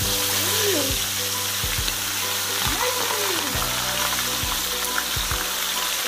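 Oil sizzling steadily in a frying pan as a seasoned whole chicken sears in it, browning the skin.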